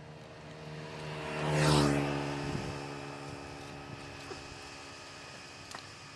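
A motor vehicle passing by, its engine and road noise growing louder to a peak just under two seconds in, then fading away.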